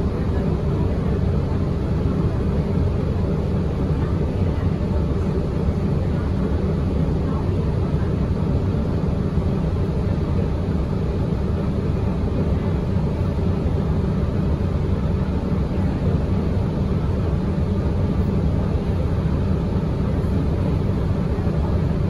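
Steady running noise of a 2017 Gillig BRT transit bus heard from inside the cabin: a low, even drone of the engine and drivetrain that holds without change.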